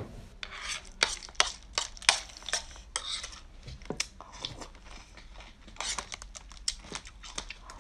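Metal spoon scooping through a pan of snails in their shells: many sharp clinks and clicks of shell against spoon and pan, with a few short slurps as snails are sucked from the spoon.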